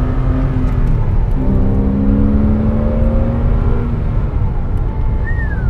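Porsche Cayman S flat-six engine pulling on the road under heavy low road rumble. Its note breaks briefly about a second and a half in and comes back lower, as on a gear change. It then climbs slowly and eases off about four seconds in.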